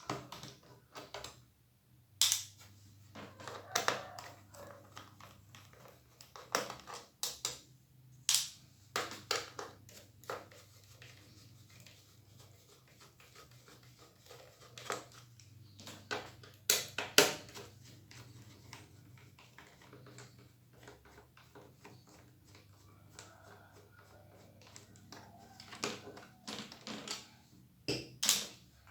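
Screwdriver turning out the small screws from an Asus laptop's plastic bottom case: irregular clicks, taps and short scrapes of metal on plastic, the sharpest about seventeen seconds in.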